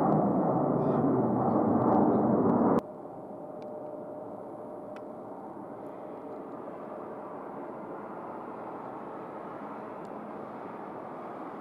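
Loud, steady engine roar of a Boeing 767 jet airliner that cuts off suddenly at an edit about three seconds in. A much quieter, steady airport background rumble follows.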